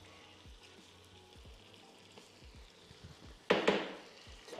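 Chopped onion frying in a stainless steel pot, a faint steady sizzle. About three and a half seconds in there is a sudden loud clatter, two knocks in quick succession.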